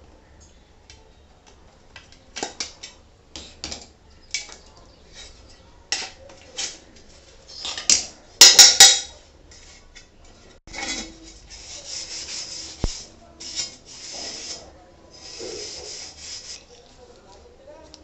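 Screwdriver and roller handling on an aluminium sliding-door rail: scattered clicks and knocks of metal on metal, a loud clatter about eight and a half seconds in, then several seconds of scraping and rubbing as the plastic roller housings are worked out of the channel.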